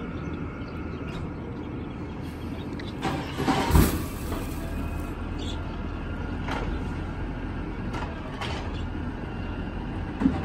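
CNG Dadee Scorpion automated side-loader garbage truck running steadily, with a burst of hiss and a heavy clunk about three to four seconds in.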